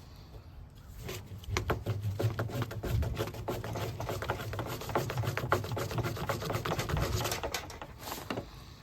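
Fire roll: a tube of unignited hand-drill dust rolled rapidly back and forth under a board, giving a fast run of rubbing strokes and clicks that starts about a second and a half in and stops near the end.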